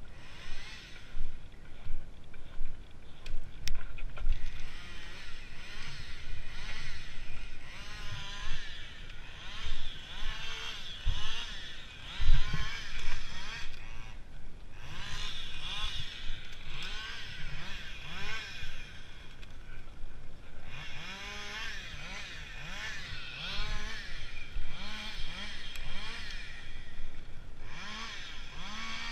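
Long handsaw sawing through wood in steady back-and-forth strokes, about one and a half a second, each stroke a rasp that rises and falls in pitch, with a couple of short pauses.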